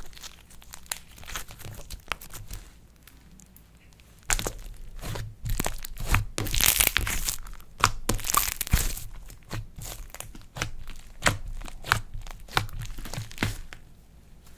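Slime being squeezed, stretched and folded by hand, giving a run of sticky crackles and pops that grows louder and denser from about four seconds in.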